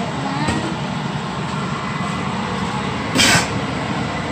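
A stainless steamer pot's glass lid set in place with a short clatter about three seconds in, over a steady background hum.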